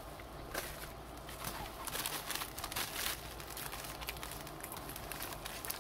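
Plastic bubble-wrap mailer crinkling and crackling in irregular bursts as it is handled and opened.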